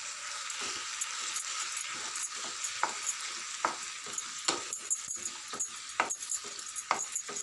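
Chicken and freshly added chopped tomatoes sizzling in a pan as a spatula stirs them: a steady frying hiss with frequent sharp scrapes and taps of the spatula against the pan, coming more often in the second half.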